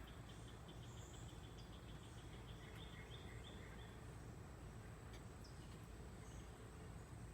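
Faint outdoor ambience of insects and birds: a run of short high chirps, about five a second, fades out about four seconds in, with a few brief chirps over a thin steady high insect drone and a low background rumble.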